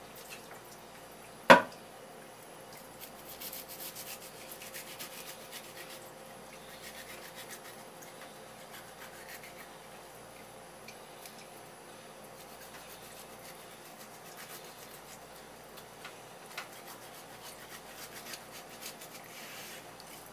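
Raw bluefin tuna collar being handled and scraped on a wooden cutting board: soft, scratchy rubbing, in clusters of fine ticks. One sharp knock about a second and a half in is the loudest sound.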